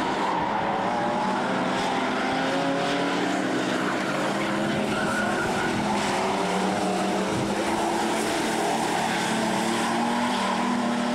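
Several figure-eight race cars, a mix of V8 and six-cylinder engines, running laps together at once; their overlapping engine notes rise and fall as the cars accelerate and lift.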